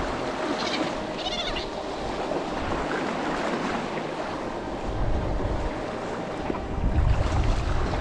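Two short seagull calls about a second in, over waves washing on the rocks. Gusts of wind buffet the microphone with a low rumble from about five seconds in, loudest near the end.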